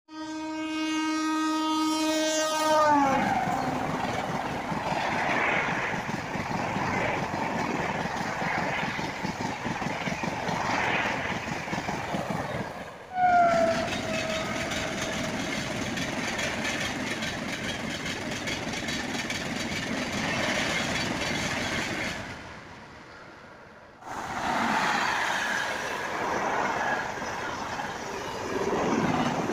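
Indian Railways express trains passing at speed. A locomotive horn sounds at the start and drops in pitch as the train goes by, followed by the rushing rumble and clatter of coaches on the rails. A second horn blast, also falling in pitch, comes about 13 seconds in, and another train rushes past near the end.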